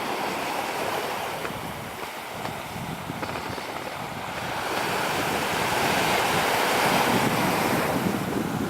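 Sea waves breaking and washing on the shore, the surf swelling to a peak about two-thirds of the way through and then easing, with wind buffeting the microphone.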